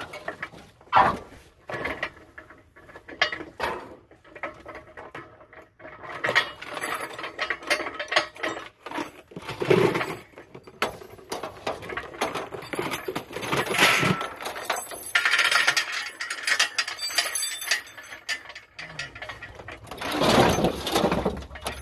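Irregular metal clanking, rattling and clicking as a homemade portable crane and its load of scrap metal are worked by hand.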